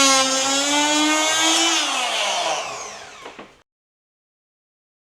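Oscillating multi-tool running with a steady high buzz, then switched off about two seconds in, its pitch falling as it winds down and fades away.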